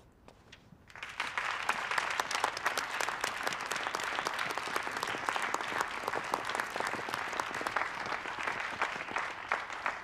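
Audience and orchestra musicians applauding, a dense, steady clapping that starts about a second in.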